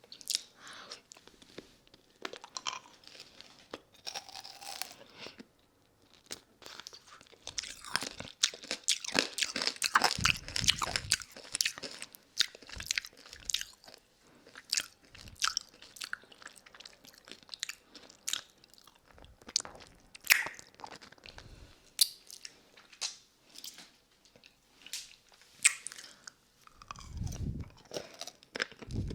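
Hard lollipop candy being bitten and crunched in the mouth close to the microphone, with wet mouth clicks. There is a dense run of cracks around eight to eleven seconds in, then scattered single crunches and clicks.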